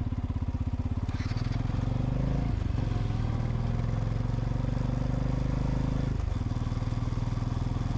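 Motorcycle engine running steadily while riding, its note changing briefly about two and a half and six seconds in.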